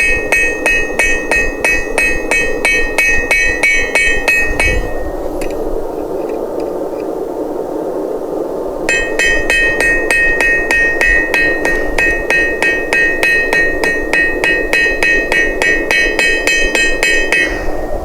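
Blacksmith's hammer striking hot steel on an anvil in quick, even blows, about four a second, each with a bright metallic ring. The hammering stops for about four seconds partway through, then resumes and runs until shortly before the end.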